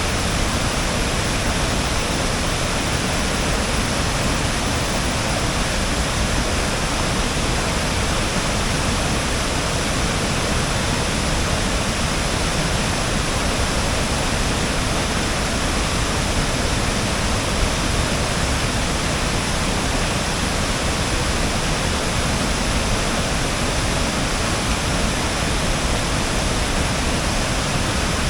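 Waterfall: falling water rushing in a loud, steady, unbroken wash of noise.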